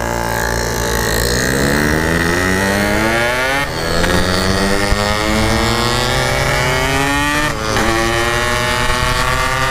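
Yamaha RX-King 135cc two-stroke motorcycle with a Packing Power exhaust accelerating. Its pitch climbs steadily, drops with an upshift about four seconds in and again about two seconds before the end, then climbs again.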